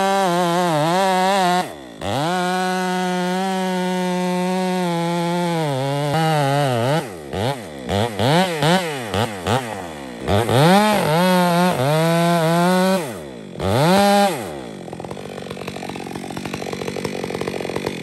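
Two-stroke chainsaw cutting the face notch into a tree trunk at full throttle, its engine note holding steady under load. From about a third of the way in, the saw revs up and down repeatedly between cuts. Near the end the steady engine note gives way to a rougher, noisier sound.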